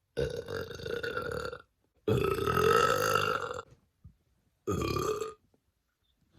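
A woman burping on command: three burps in a row, the second the longest and loudest, the last one short.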